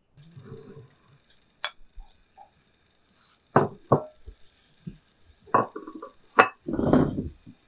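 Dishes set down on a wooden table: a glass bowl of raw almonds, a white bowl and a plate, making a series of sharp knocks and clinks. The longest and heaviest knock comes near the end.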